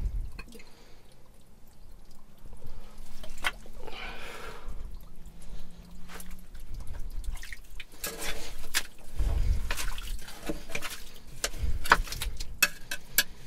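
Digging by hand through wet privy fill for old glass bottles: scattered sharp clicks and knocks of glass and tools, with wet, dripping sounds.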